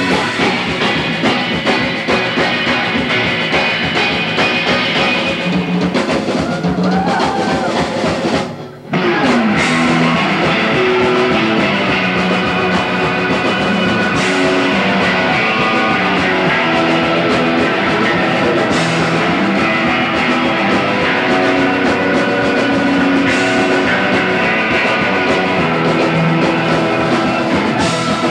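A surf rock band playing live with electric guitars, drum kit and keyboard. The band stops briefly about eight and a half seconds in, then comes back in.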